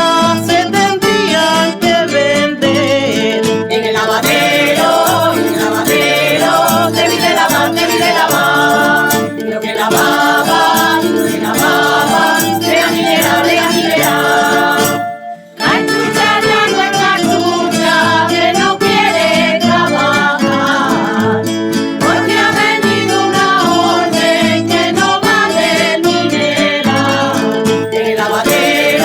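Traditional Extremaduran folk song sung by a group of voices with guitar accompaniment. It breaks off for a moment about halfway through, then carries on.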